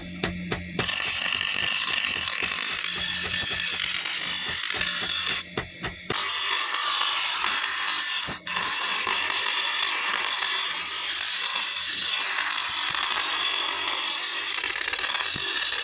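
Continuous harsh rasping of a tool working the steel of a leaf-spring machete blade, broken by a few short drop-outs.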